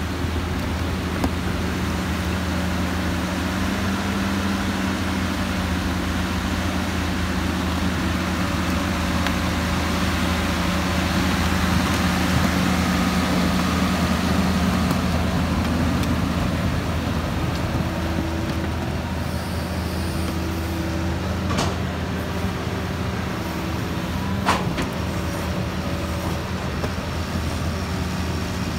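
Hitachi Zaxis 200 crawler excavator's diesel engine running steadily while the machine works, a little louder around the middle, with two short sharp clanks near the end.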